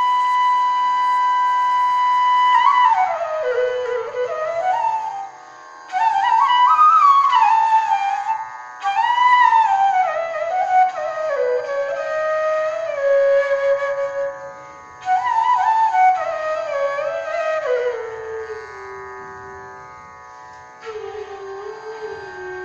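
Bansuri (bamboo transverse flute) playing an alap-style phrase in Raag Charukesi: a long held note, then descending phrases with slides between notes, broken by short breaths, settling on a low note near the end.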